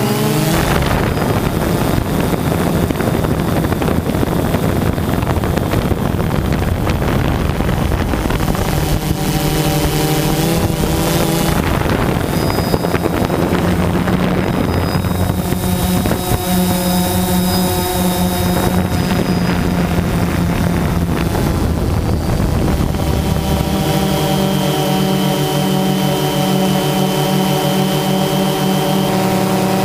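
DJI Phantom 2 quadcopter's electric motors and propellers buzzing, recorded close up by the GoPro on board, the pitch shifting several times as the motors change speed, with wind on the microphone.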